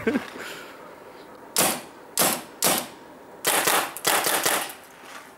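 Paintball marker firing: three short sharp shots about half a second apart, then two longer hissing shots about three and a half seconds in.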